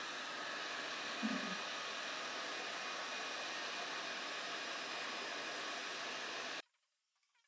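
ATTEN WX-2008D hot air rework gun blowing, a steady airflow hiss, with a short low thump about a second in. The hiss stops abruptly near the end.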